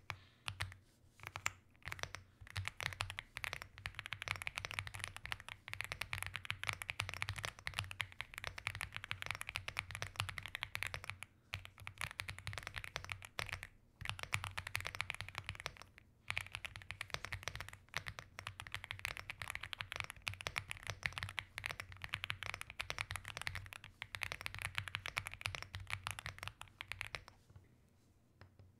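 Fast touch-typing on an Aula F75 mechanical keyboard: a dense stream of key clacks with a few brief pauses, stopping about a second before the end.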